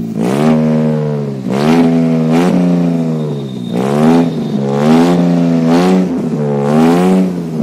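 Maruti 800's three-cylinder petrol engine being revved again and again through its exhaust, the pitch rising and falling with each blip of the throttle.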